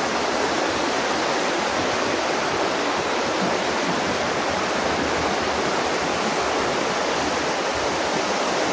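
Steady rush of flowing water, such as a mountain stream or small waterfall, holding an even level throughout.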